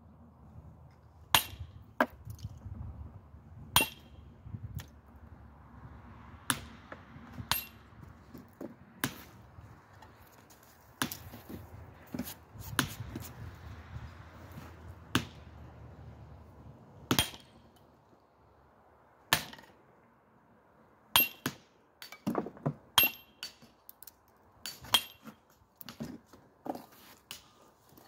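Mason's hammer striking a steel chisel against Indiana limestone as the stone's edges are hand-dressed: sharp, ringing metallic clinks every second or two, some in quick pairs, with fainter strikes among them.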